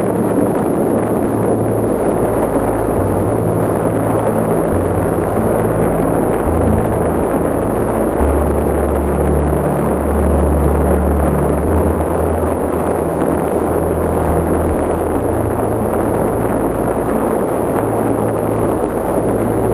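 Steady, loud rushing noise of a boat under way through sea ice, with wind on the microphone. Low held notes of slow background music change underneath.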